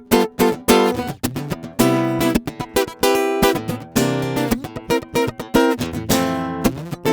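JCraft Troubadour Taka Mini, a small all-mahogany travel acoustic guitar, strummed and picked in a steady rhythm, one chord after another.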